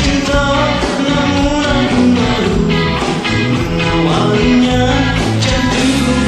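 Instrumental intro of a pop song backing track: a melodic lead line over bass and drums, with no lyrics yet.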